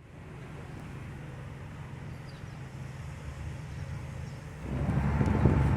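A vehicle engine running with steady traffic or road noise, getting louder a little past four and a half seconds in.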